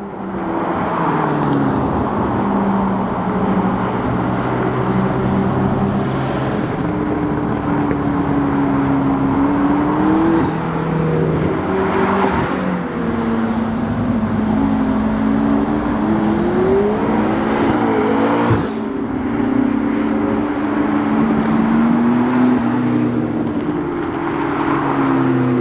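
McLaren MP4-12C's twin-turbo V8 running, its pitch mostly steady but climbing twice, about ten seconds in and again near two-thirds of the way through, as the engine is revved up, then dropping back.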